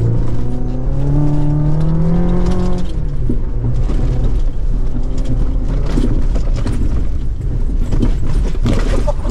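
A 2024 Chevrolet Colorado ZR2 Bison's 2.7-litre turbocharged four-cylinder pulls hard, its pitch rising for about three seconds and then falling away. After that the truck runs fast over a rough dirt track, with a steady rumble of tyres on dirt and frequent knocks and jolts from the bumps, heard from inside the cab.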